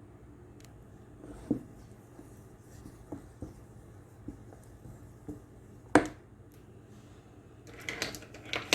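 Soft knocks and taps of kitchen containers and utensils while thick blended bean batter is poured from a blender jar into a pan. A few scattered taps give way to one sharper knock about six seconds in and a quick run of clicks near the end.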